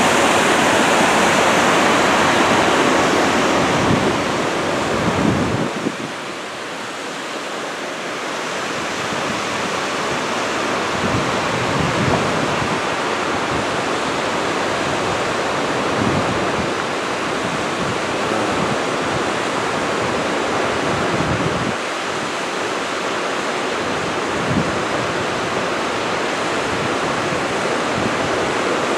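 Steady rush of running creek water, louder for the first six seconds and then a little softer.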